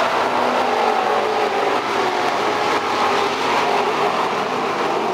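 Engines of several Outlaw Street Stock dirt-track race cars running steadily as they circle the oval.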